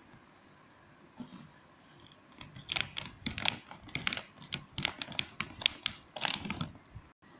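Scissors cutting open a plastic dog-food bag: a quick run of sharp snips and crinkles of the stiff packaging, starting about two seconds in and stopping just before the end.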